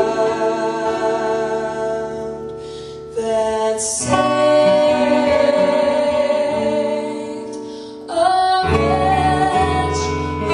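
A young woman singing long held notes, accompanied by an acoustic-electric guitar. A sung line fades out and a new one starts about three seconds in, and again about eight seconds in.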